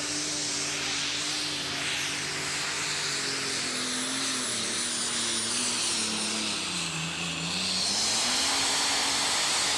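Super Stock pulling tractor's turbocharged diesel engine at full throttle under load, dragging a weight-transfer sled, with a high whistle over the engine. Its note sags about seven seconds in as the sled bogs it down, then climbs again and is loudest near the end.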